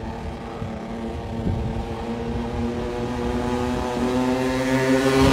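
Cobra 50cc kids' two-stroke motocross bike running as it rides toward the microphone, its engine note growing steadily louder. The engine runs after a river flooding and a clean-out, and its rider thinks the carburettor may need re-jetting for the altitude so it accelerates better.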